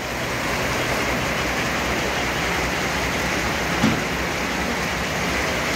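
Steady, even whooshing noise of sawmill machinery running, with one short knock about four seconds in as the teak log is worked onto the saw carriage.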